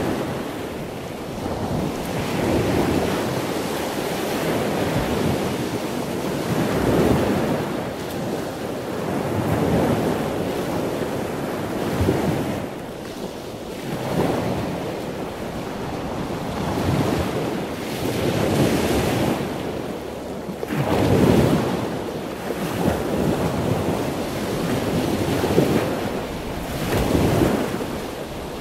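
A steady rushing noise like surf, swelling and fading every two to three seconds.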